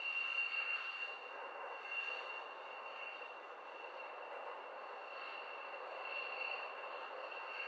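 Distant jet engine running with a steady high whine over a hiss.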